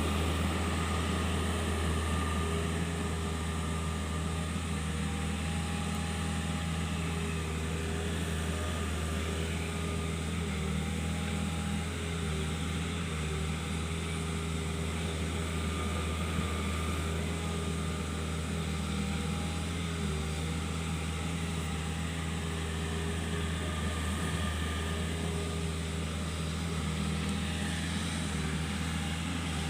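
Kobelco SK 50 P mini excavator's diesel engine running at a steady pace, with a constant low hum.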